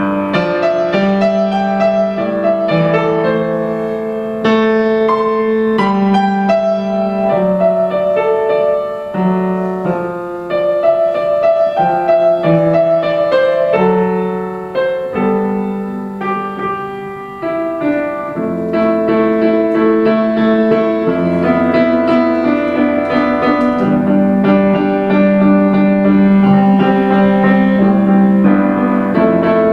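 Solo upright piano playing a slow piece, a melody over held chords. It softens briefly about halfway through, then plays fuller and louder toward the end.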